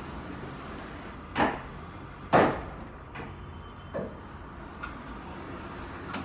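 Framed ceramic tile display panels knocking and clacking as they are swung along a showroom display rack: a handful of sharp knocks, the loudest about two and a half seconds in.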